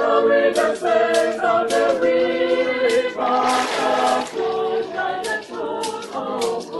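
A group of voices singing unaccompanied, with a short splash of water about halfway through as someone is dipped under in a baptismal pool.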